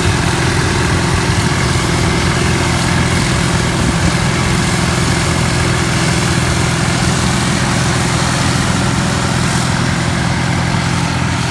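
John Deere 9700 combine running steadily while harvesting wheat: an even engine drone with a steady hiss over it, no change in pace.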